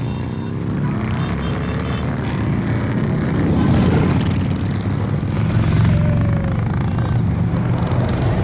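A procession of motorcycles riding past, mostly Harley-Davidsons, their engines rumbling steadily, with pitches sliding as single bikes go by.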